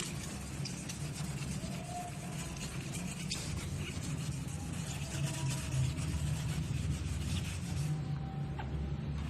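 Handheld power sander-polisher running steadily on a powder-coated finish: an even motor hum with a hiss over it.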